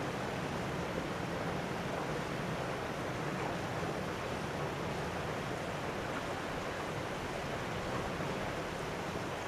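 Steady rush of water pouring into the pond, with no separate splashes or clicks standing out.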